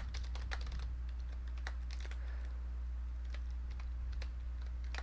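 Typing on a computer keyboard: irregular key clicks, over a steady low hum.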